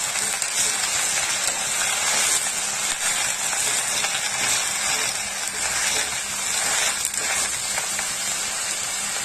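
Colocasia leaves frying in a non-stick kadai as they are stirred and tossed with a steel slotted spatula, a steady sizzle.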